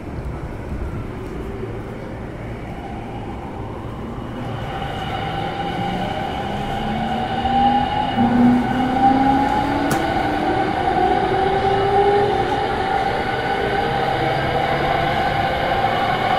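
JR E231 series 800 electric train pulling away and picking up speed, its VVVF inverter traction motors giving a whine that climbs steadily in pitch over a steady higher tone, the sound fans call the 'ghost inverter'. A single sharp click comes about ten seconds in.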